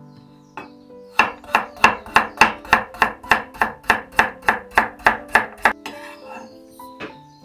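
GLOBAL-IST stainless-steel chef's knife slicing a carrot into thin rounds on a wooden cutting board. It is a quick, even run of about sixteen knocks, three or four a second, starting about a second in and stopping some four and a half seconds later.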